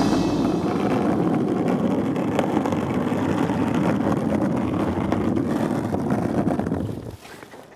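Skateboard wheels rolling on concrete under a cardboard box with a rider in it: a steady rumble that fades out about seven seconds in.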